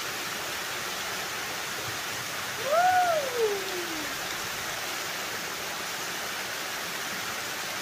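Waterfall cascading down rock ledges, a steady rush of water. About three seconds in, a single drawn-out voice-like call rises and then slides down in pitch.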